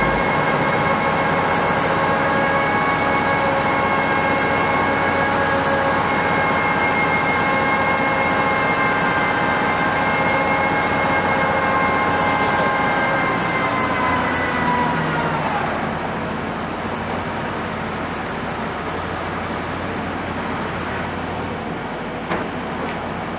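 Heavy construction machinery running with a steady, high, tonal whine that drops in pitch and winds down about fifteen seconds in, leaving a lower mechanical hum. A single sharp knock near the end.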